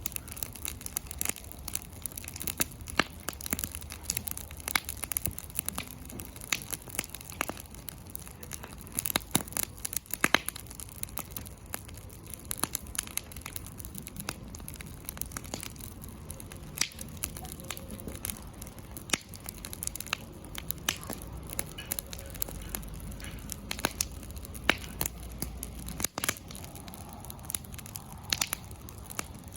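Wood campfire burning, with frequent irregular sharp pops and crackles over a steady low rumble.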